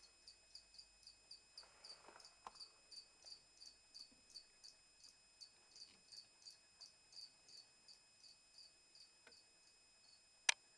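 A cricket chirping faintly in a steady rhythm, about three short high chirps a second, stopping shortly before the end. A single sharp knock near the end is the loudest sound.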